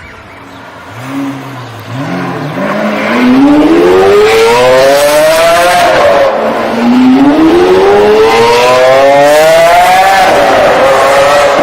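Sports car engine under hard acceleration: the revs climb for about three seconds, dip at an upshift about six seconds in, climb again, then hold steady near the end.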